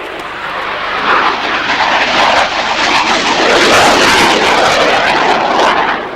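Military jet making a fast, low pass: its noise swells over the first couple of seconds, is loudest just past the middle, and fades near the end.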